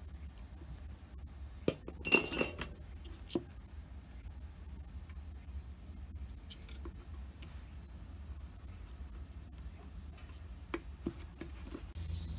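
A few light clicks and clinks of a soldering iron and a small circuit board being handled, the loudest cluster about two seconds in and a few softer ticks near the end, over a steady low hum and faint high hiss.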